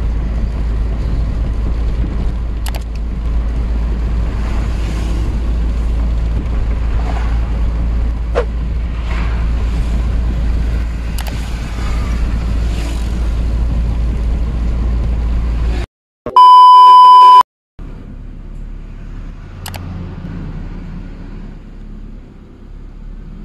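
Steady low road and engine rumble inside the cabin of a Mitsubishi Lancer being driven. About 16 seconds in, it drops out to silence for a loud, steady electronic beep lasting about a second, then gives way to a quieter, lower hum.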